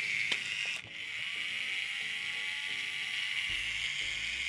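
Small electric motor of a handheld battery-powered can opener running with a steady buzzing whir that briefly cuts out about a second in, over background music whose bass comes in near the end.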